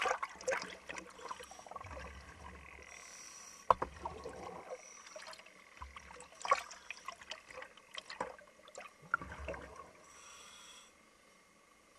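Sea water splashing and bubbling at the surface, partly heard from underwater, with scattered sharp knocks. The loudest come about four and six and a half seconds in.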